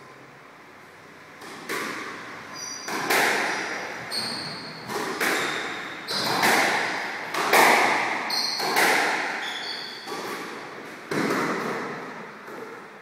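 Squash rally: the ball smacks off racquets and the court walls about once a second, each hit echoing in the enclosed court, with short high squeaks of shoes on the court floor between shots.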